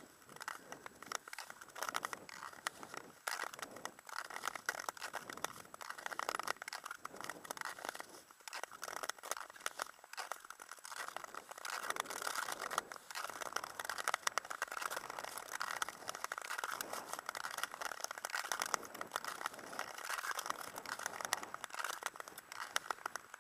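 Ice skate blades scraping and crunching over rough outdoor ice, a dense crackle of fine ticks that swells and fades stroke after stroke.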